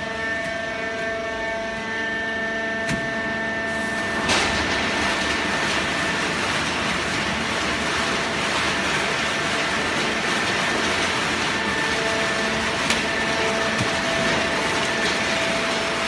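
Fully automatic horizontal cardboard baling press running: a steady machine hum with several held whining tones, joined about four seconds in by a louder, even rushing noise.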